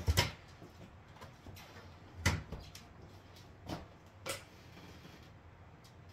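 Kitchen clatter: a handful of short knocks and clunks, the loudest about two seconds in, over a faint steady background.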